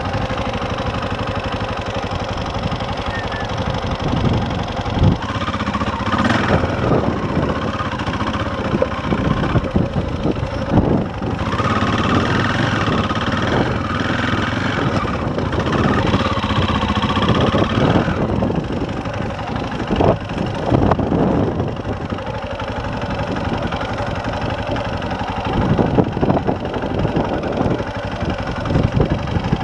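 KTM single-cylinder four-stroke dirt bike engine running under load on a rough trail, the revs rising and falling with the throttle several times. Irregular knocks and rattles come from the bike over rocks.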